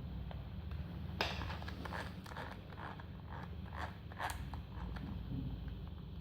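A quick run of short scrapes and clicks, a few a second, starting about a second in: objects being worked and scraped by hand.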